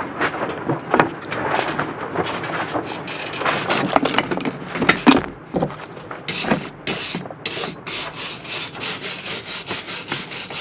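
Cleaning slag off a fresh stick weld: irregular scraping and a few sharp knocks, then from about six seconds in a hand wire brush scrubbing back and forth over the bead, about three strokes a second.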